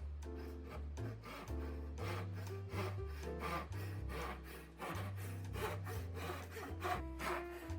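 Japanese hand saw cutting wood in quick back-and-forth strokes, about two a second, over background music with a steady bass line.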